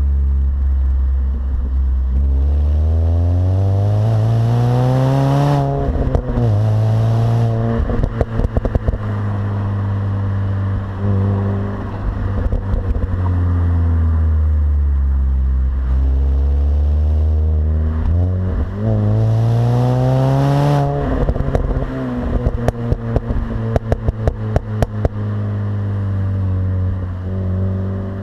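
Mini Cooper S R53's supercharged 1.6-litre four-cylinder engine on its stock exhaust, running steadily and twice rising in pitch as it is pushed up the revs over a few seconds. Each time the note drops off and is followed by a run of sharp crackles and pops.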